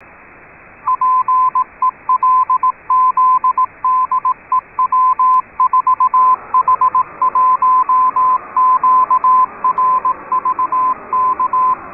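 Morse code (CW) signal received on a shortwave receiver: a tone of about 1 kHz keyed in dots and dashes over receiver hiss. About six seconds in, a wider noise rises around the tone, interference from another station lowering the signal-to-noise ratio.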